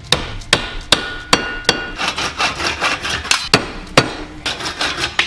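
Repeated sharp knocks, about two or three a second, as a PVC pipe assembly is struck down against the steel anvil of a bench vise to drive a short length of pipe inside a PVC fitting and double its wall. A few knocks ring briefly.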